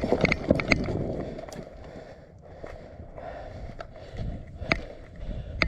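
Quick running footsteps with gear jostling, fading out about a second in, followed by a few scattered sharp cracks.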